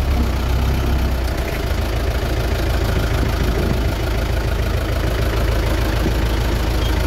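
Tractor diesel engine running steadily as the tractor moves off, heard from inside the cab: an even low drone.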